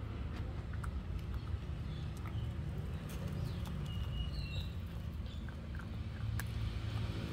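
A puppy gnawing and crunching a duck bone: scattered sharp clicks of teeth on bone over a steady low rumble.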